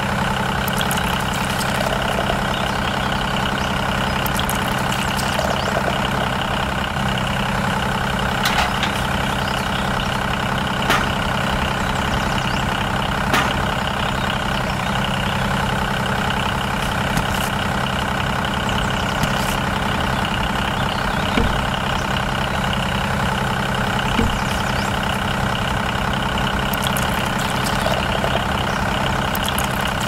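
Steady engine-like running from a miniature stationary engine model belt-driving a small grape crusher, with a few sharp clicks standing out over it.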